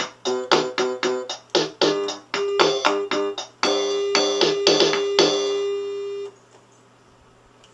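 Casio MT-520 portable electronic keyboard played: a quick series of short notes, then one long held note that stops about six seconds in.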